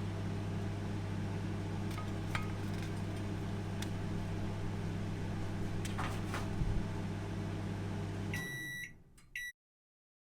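Microwave oven running with a steady hum and a few faint clicks while heating a chicken fillet burger, then shutting off about eight seconds in, followed by two short beeps signalling the cooking is done.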